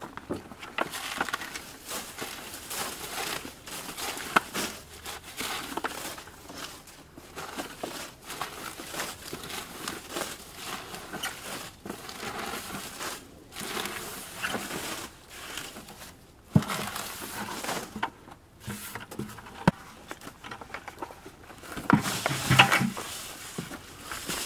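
Rustling and crackling of leafy vegetable waste, mostly lettuce leaves, being tipped and spread by hand onto the straw-and-shredded-paper layer of a compost pile.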